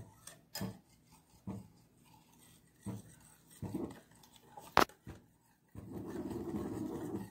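Wire whisk stirring a thin banana-and-milk mixture in a glass bowl: irregular taps and clinks of the wires against the glass about once a second, the sharpest just before five seconds in, then a steady swishing, rubbing sound from about six seconds in.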